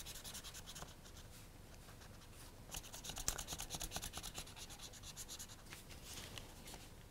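Felt-tip marker scribbling on paper in quick, faint strokes, colouring in a shape, with a busier stretch of strokes about three seconds in.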